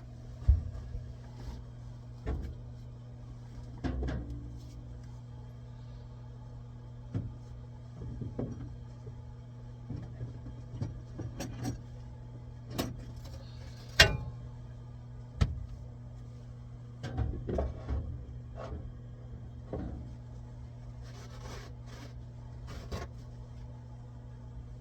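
Scattered knocks, clicks and clatters of plumbing tools and parts being handled at irregular intervals, over a steady low hum.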